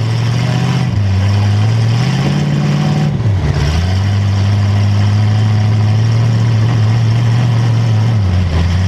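Demolition derby car's engine revving hard under throttle. It climbs in pitch, dips briefly about three seconds in, is held at high revs for several seconds, then drops back near the end.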